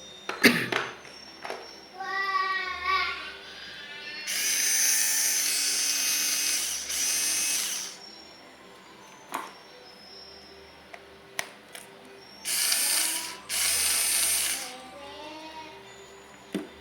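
Electric drill being handled and tested: its motor briefly winds up and down, with two pairs of loud ratcheting bursts a few seconds long.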